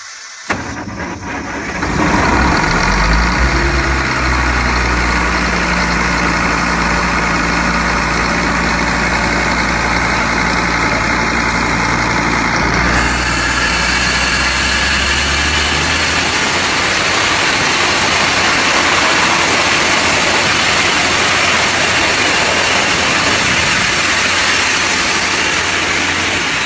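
Industrial air compressor running loud, with a steady rushing blast of compressed air, coming on in a couple of steps over the first two seconds. Around the middle the sound shifts: more hiss, and the low engine tones drop away.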